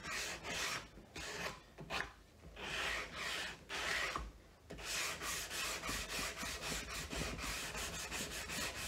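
Hand sanding a timber frame rail with sandpaper wrapped around a sanding block: rasping back-and-forth strokes of abrasive paper on wood. The strokes come about two a second at first, then quicken to about four or five a second from about five seconds in.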